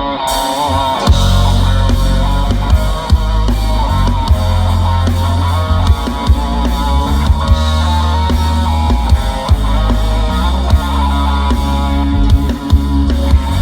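Live band playing rock music, with drum kit, bass, electric guitar and keyboard chords held over a steady beat.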